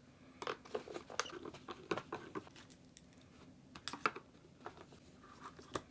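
Phillips screwdriver backing screws out of the back of a Bosch Digifant ECU's metal case, with scattered faint, irregular clicks and light knocks from the tip and the handled case.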